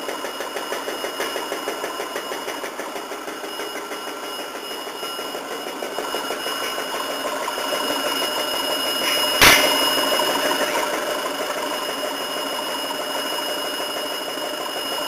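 Conveyor-fed food cutting machine running as it slices breaded cutlets: a steady mechanical clatter with a fast, even pulse and a faint steady whine. There is one sharp clack about halfway through.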